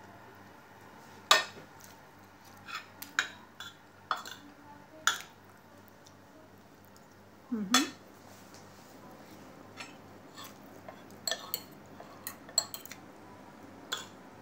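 Metal fork and spoon clinking against ceramic plates while eating, about a dozen sharp, irregularly spaced clinks, the loudest about a second in.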